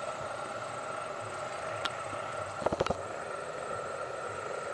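Passenger train rolling away, its wheels clacking over rail joints: a single click, then a quick cluster of three or four about two and a half seconds in. Beneath them runs a steady drone.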